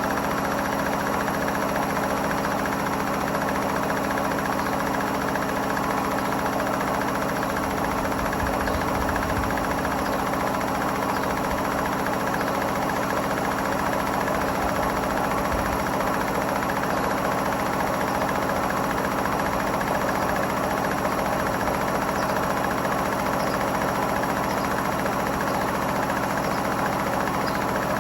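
Hotpoint WMFUG742 washing machine spinning with bricks in the drum: a steady motor whine over a continuous drum rumble, with heavier low rumbling about eight to ten seconds in.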